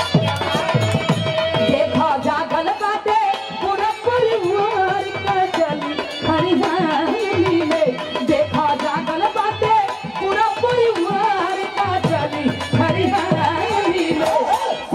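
Live Bhojpuri birha folk music: a hand drum beating a steady rhythm under a wavering melody line.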